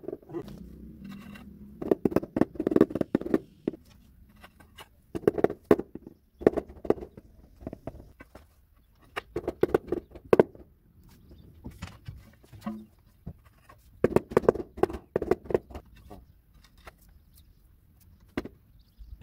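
Rubber mallet tapping ceramic floor tiles down into their bed of tile adhesive: several bursts of quick, dull knocks with pauses between.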